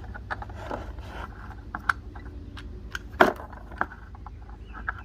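Small metal tool parts clicking and clinking as they are handled and fitted together for a brake caliper piston compression tool. There is a sharper clack about three seconds in.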